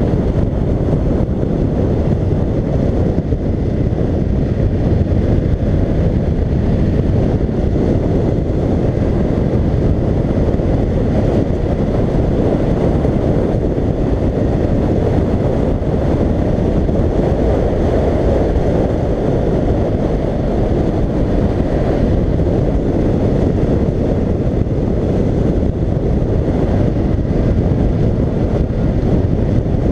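Steady wind noise rushing over a helmet-mounted microphone on a moving BMW F750GS motorcycle, with the bike's engine and tyre noise blended underneath at an even cruising pace.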